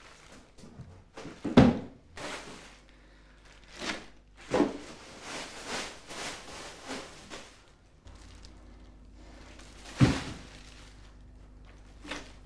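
Household handling sounds: a few sharp thuds and knocks, the loudest about a second and a half in and near ten seconds, with rustling between them.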